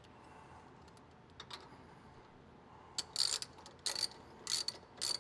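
Ratchet wrench tightening the nut on a vacuum-truck pre-filter's filter retainer plate: short runs of ratchet clicks, one faint run about one and a half seconds in, then four more from about three seconds in.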